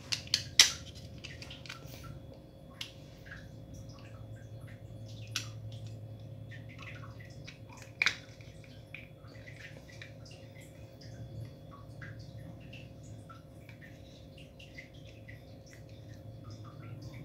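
Small clicks and taps of a spring airsoft SIG P226's plastic slide parts being pressed and fitted back together by hand, with two louder snaps, about half a second in and about eight seconds in. A faint steady hum runs underneath.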